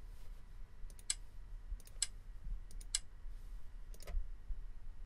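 Four light clicks, each a quick double click, about a second apart, as beads are set one move at a time on a digital abacus app to enter an answer.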